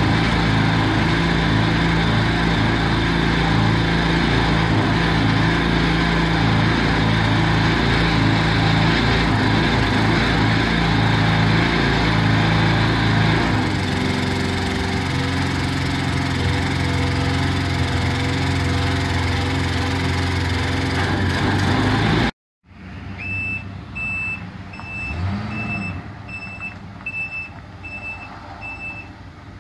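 A gas engine running steadily, its note changing about halfway through. After a sudden cut, a backup alarm beeps steadily, about one and a half beeps a second, over a quieter engine whose pitch rises and falls twice.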